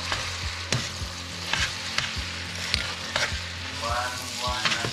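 Spaghetti being tossed with tongs in a stainless steel pan of hot garlic and olive oil: a steady sizzle, with the tongs clicking and scraping against the pan about once a second. A short squeak sounds about four seconds in.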